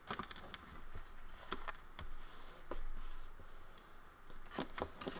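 Bone folder drawn along the groove of a scoring board, scoring a fold line into thick cardstock: a dry scraping stroke about two seconds in, with light clicks and taps of the tool and paper around it.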